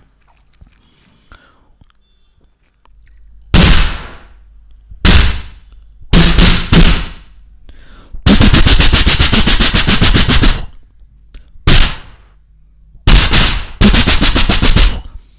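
A man imitating AK-47 gunfire with his mouth into a microphone. After a quiet start come single shots, then two or three quick shots, then a long fast automatic burst of about two seconds, then another single shot and two shorter bursts near the end.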